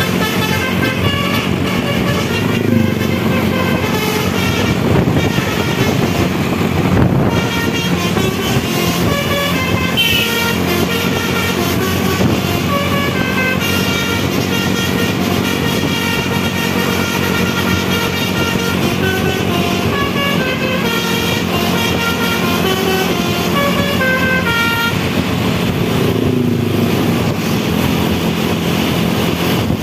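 Basuri musical bus horn playing a tune of quick notes that step up and down in pitch, over the steady low drone of the bus. The tune stops about 25 seconds in, leaving the bus's running noise.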